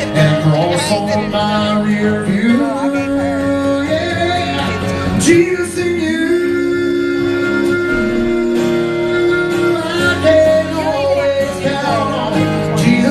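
A man singing live through a microphone and PA, holding long notes with vibrato, over guitar accompaniment.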